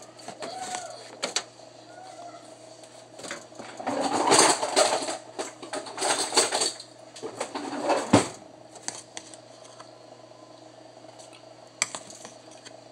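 Dry cornstarch being handled: a few rustling, crunchy bursts in the middle, over a faint steady hum.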